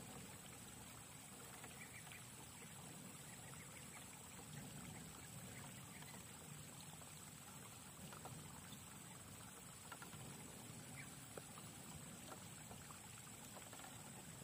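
RC rock crawler with a Hobbywing QuicRun Fusion Pro 2300KV brushless motor crawling slowly over rock: faint motor and drivetrain hum with small scattered clicks and scrapes of tyres and stones. A steady high-pitched tone runs under it.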